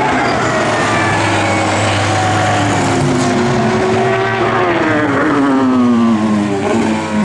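GT racing car engines at high revs. One car passes close about halfway through, its engine note dropping in pitch as it goes by and away.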